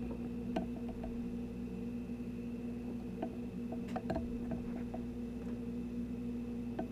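Small clicks and taps of the DiamondBack bullet orientation sensor being pushed and nudged by hand on the reloading press while it is aligned, the most of them about four seconds in, over a steady hum.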